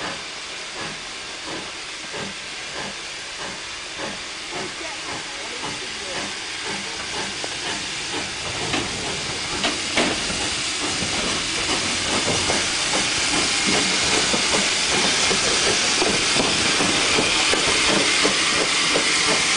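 Steam locomotive hauling coaches, its exhaust beats chuffing in a steady rhythm over a hiss of steam. Both grow louder as the engine draws near and passes close by.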